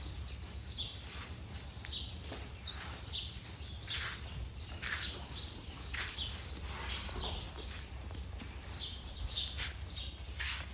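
Small birds chirping: many short, quick downward chirps, a few each second, over a low steady hum.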